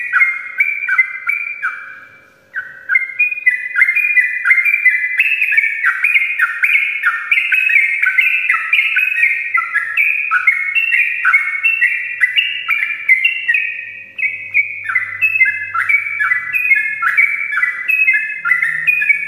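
Yellow-vented bulbul (trucukan) singing a long, fast, nearly unbroken run of bubbly chattering notes, the continuous 'ropel' song, with a short break about two seconds in.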